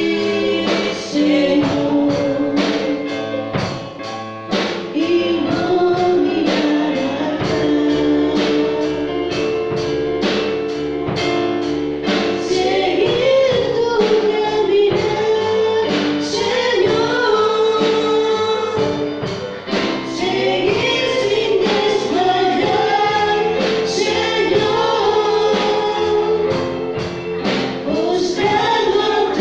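Live gospel worship song with a steady beat: singers with a band of drum kit and keyboard.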